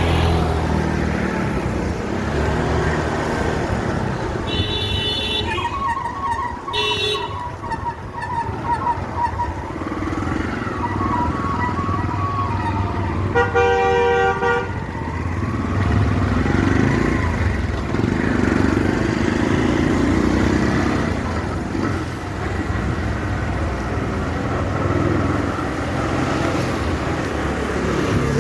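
Steady engine and road noise of traffic while riding, with a string of vehicle horn toots from about five to fifteen seconds in, the loudest about fourteen seconds in.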